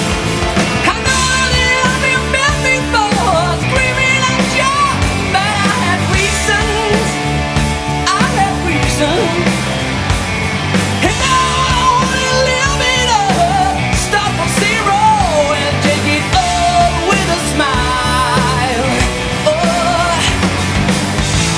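Loud rock music with a full band, carrying a lead melody that slides and wavers in pitch.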